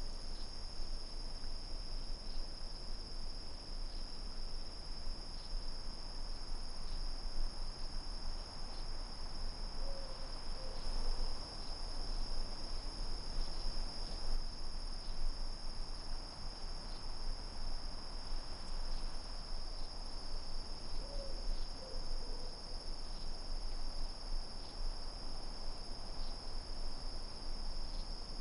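Night-time chorus of crickets: a steady, unbroken high-pitched trilling. About ten seconds in and again about twenty-one seconds in, a faint short low call of two or three quick notes sounds beneath it.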